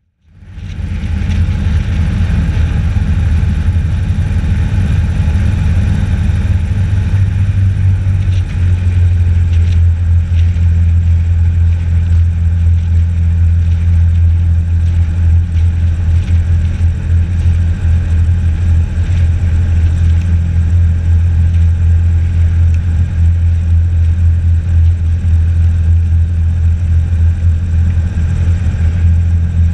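Airboat engine and propeller running steadily under way, a loud, even drone with a deep low hum.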